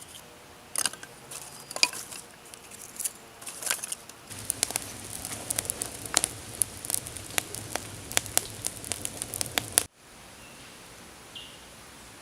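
Wood fire crackling with irregular sharp pops, joined about four seconds in by a low steady rumble of the burning fire. It cuts off suddenly near the end, leaving quiet outdoor background with a couple of faint high chirps.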